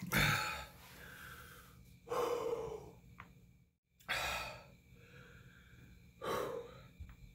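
A man breathing hard and heavily through his mouth against the burn of a very hot chili sauce: four loud, noisy breaths about two seconds apart, with fainter breaths in between.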